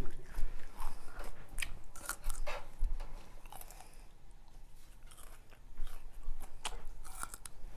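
Close-up eating sounds: chewing and biting, with scattered short sharp clicks throughout, thinning out in the middle.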